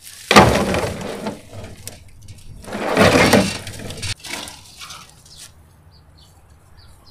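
Leafy tree branches being heaved into a utility vehicle's cargo bed, leaves and twigs rustling and scraping. The first load lands suddenly about a third of a second in. A second load rustles in from about three seconds and stops abruptly about four seconds in.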